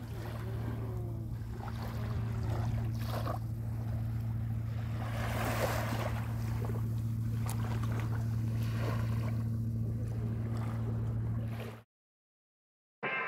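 A steady low engine hum carries on under small waves lapping at the shoreline, with wind gusting on the microphone. The sound cuts off abruptly near the end.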